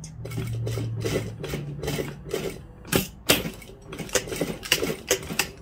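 Industrial lockstitch sewing machine with a zip foot stitching slowly along a dress zip: a run of needle-stroke clicks at about four a second, over a low motor hum in the first couple of seconds, with the loudest clacks about three seconds in.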